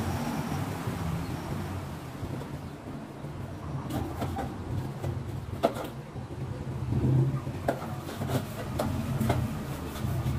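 Steady low background rumble with a few light knocks and clicks scattered through the second half, the sharpest a little past halfway.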